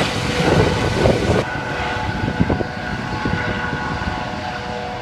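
Police helicopter flying low overhead, its engine and rotors running with a steady whine over rough rotor noise.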